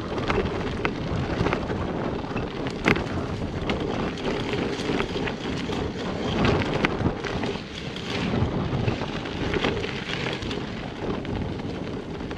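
Hyper Explorer mountain bike rolling along a dirt and pine-needle trail: steady tyre rumble with wind buffeting the microphone, and frequent clicks and rattles from the bike over bumps.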